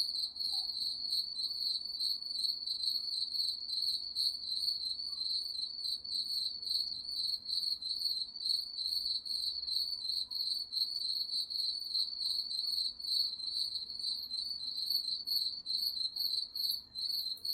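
Crickets chirping in a steady, rapid, high-pitched trill that goes on without a break.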